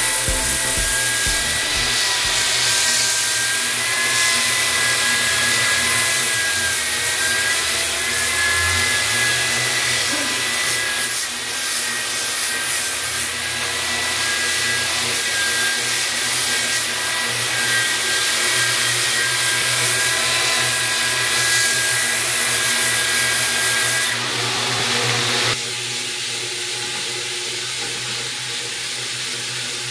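Electric power tool running steadily with a high whine while sanding a terrazzo floor. The sound shifts about six seconds before the end and then carries on quieter.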